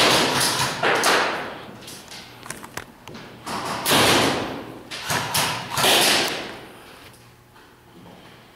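Movement noise from a player carrying the camera: a run of rustling swells, each under a second long, with a few light thuds among them.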